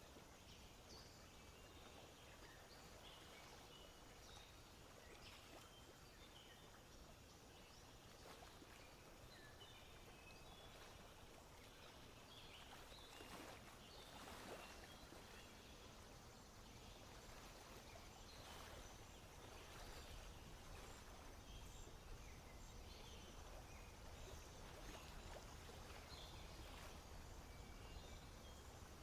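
Faint wetland ambience: many short, high bird calls scattered throughout over a low, steady background noise.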